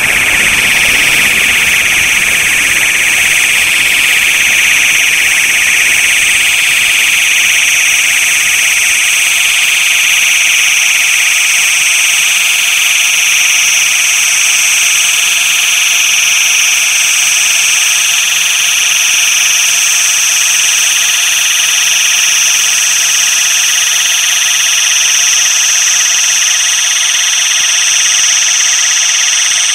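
Loud, steady, high-pitched electronic noise drone: bands of shrill hiss and whine held without a break, with almost no low end.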